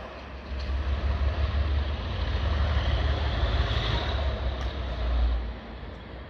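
Class 37 diesel locomotive's English Electric V12 engine running under power as it passes light engine: a deep, steady rumble with a broad hiss above it that drops away near the end.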